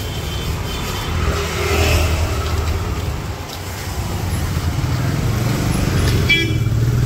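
Road traffic: car, taxi and motorbike engines running in a low steady rumble that grows somewhat louder in the second half, with a short high-pitched tone about six seconds in.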